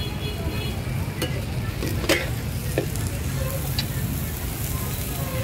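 Food frying in a hot pan at a market stall, with a few sharp clinks of utensils, the loudest about two seconds in, over a steady low rumble.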